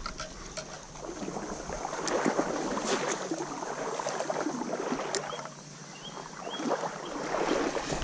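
A topwater prop lure being reeled across the river surface: an irregular splashing and churning of water with many small ticks, easing off briefly about five and a half seconds in.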